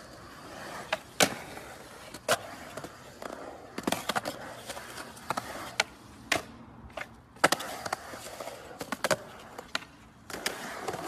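Skateboard wheels rolling over a concrete bowl, with about half a dozen sharp clacks of the board and trucks hitting the coping and landing.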